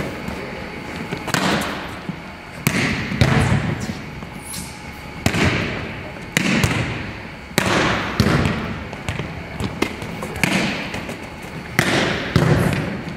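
A volleyball is struck again and again, the coach's hand hitting it and the player's forearms passing it, with the ball landing on the hardwood floor. These are sharp smacks every second or two, about ten in all, each ringing on in a large empty gymnasium.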